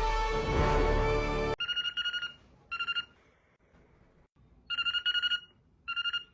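Telephone-style ringing: a rapid trilling double ring, heard twice with a pause between. It follows a loud held sound of several tones that cuts off abruptly about a second and a half in.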